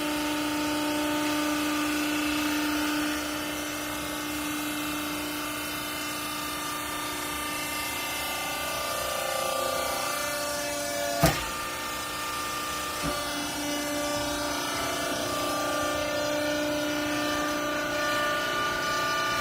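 Wiper compress baler machine running with a steady whine of several tones that shift in pitch about halfway through. One sharp clank comes about eleven seconds in, and a lighter knock follows a couple of seconds later.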